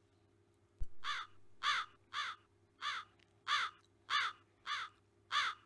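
A bird giving eight short, evenly spaced calls, about one every 0.6 seconds, after a single sharp click just under a second in.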